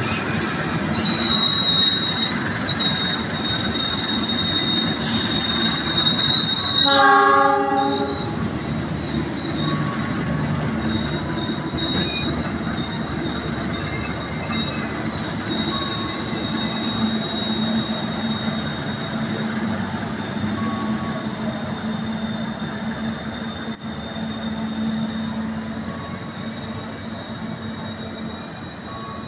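Pangrango passenger train's coaches rolling past on the rails, their wheels squealing in high, drawn-out tones. A short horn blast from the locomotive comes about seven seconds in. The rumble slowly fades as the train pulls away.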